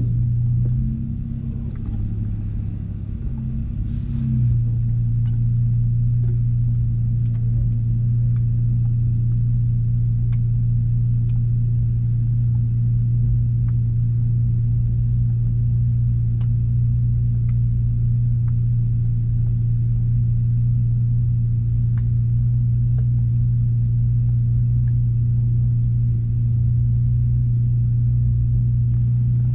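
Car engine running with a steady low drone. It is uneven for the first few seconds, then holds one constant note.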